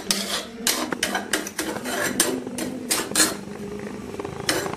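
Steel spatula clinking and scraping against a clay cooking pot while stirring cooked prawns and coconut pieces: irregular strokes, about three a second, pausing briefly a little after three seconds in, then one more stroke near the end.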